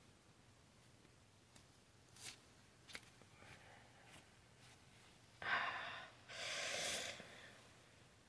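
Faint handling noise from a zippered fabric compression sleeve: a few soft clicks, then about two seconds of fabric rustling beginning about five and a half seconds in.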